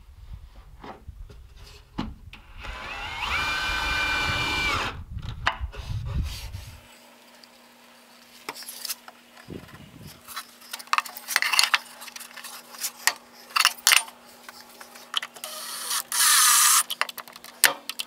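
Ryobi 18V cordless drill/driver spinning up to a steady whine for about two seconds and stopping. This is followed by knocks and clicks of plywood panels being set and fastened. Near the end, a loud burst of about a second comes as the drill bores into plywood.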